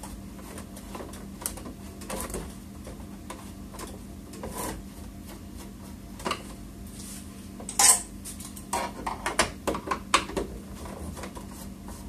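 Hands and a screwdriver working at the plastic back cover of an all-in-one PC that is not coming free: scattered clicks, taps and rattles, with one sharper clack about two-thirds of the way through and a busier run of clicks after it.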